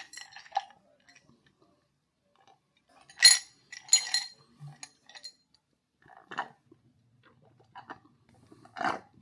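Spoon clinking against a bowl during eating: a few scattered, ringing clinks, the loudest two about three and four seconds in, then fainter ones.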